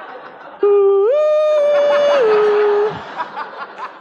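A man humming a three-note phrase into a microphone: a low note, a slide up to a higher one, then back down, held for about two seconds. There is light audience laughter around it.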